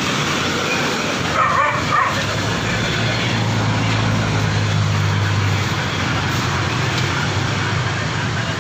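Steady road-traffic noise from passing vehicles, with a low engine drone swelling for a few seconds mid-way. Two brief sharp sounds stand out about one and a half and two seconds in.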